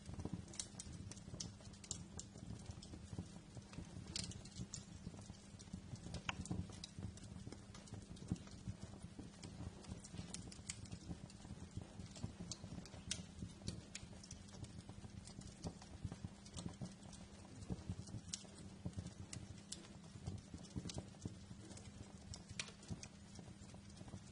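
Wood fire crackling in a fireplace: irregular sharp pops and snaps, several a second, over a low steady rumble of the flames.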